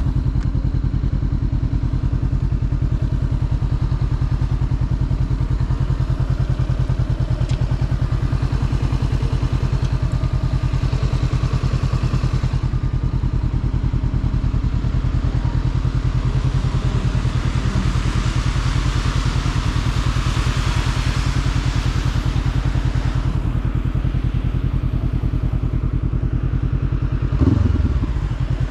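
Motorcycle engine running steadily under way, with a hiss that swells in the middle and fades again, and a short blip of revs near the end.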